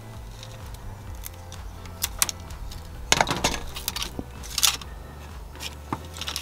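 Wire cutters snipping through old, brittle plastic cable ties, giving a few sharp snaps and clicks, mostly in the second half, with cables and cut ties being handled in between.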